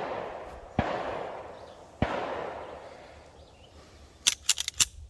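Prototype pistol firing two shots a little over a second apart, each followed by a long echo that fades away. Near the end comes a quick run of five light, high-pitched metallic clicks.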